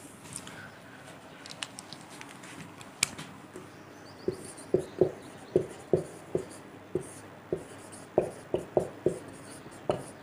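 A marker pen writing on a whiteboard. There are a few faint clicks at first. From about four seconds in comes a run of short tapping strokes, about two a second, as the letters are drawn.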